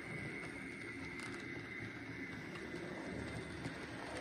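HO scale Spectrum 2-10-0 Russian Decapod model steam locomotive running along the track: a steady low rumble of wheels and mechanism on the rails with a faint steady high whine.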